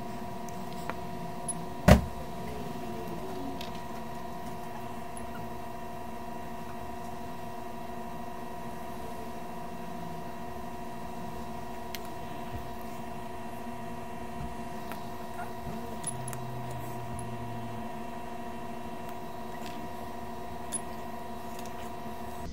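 A steady electrical hum made of several tones, with one sharp loud click about two seconds in and a few faint ticks.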